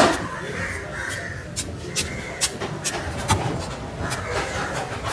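Knife or cleaver blows knocking on a wooden chopping block, about two a second, the first the loudest, over a murmur of voices.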